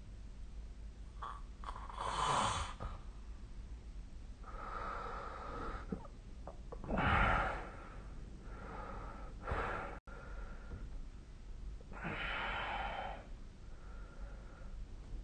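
A sleeping person snoring, noisy breaths rising and falling in a slow rhythm, with a louder one about every five seconds and softer ones between.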